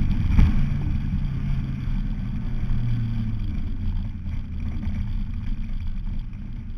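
Honda EF Civic dirt track race car's engine running under way, heard from inside the cabin along with rumble from the car bouncing over the dirt. A single sharp knock comes about half a second in, and the sound eases off slightly near the end.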